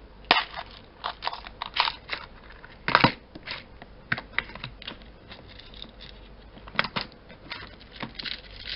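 Irregular light clicks and taps of small hard objects being handled, the loudest a sharp clack about three seconds in and two more near seven seconds.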